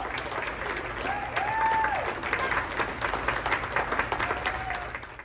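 Small audience applauding with steady, irregular clapping, with a couple of short whoops of cheering.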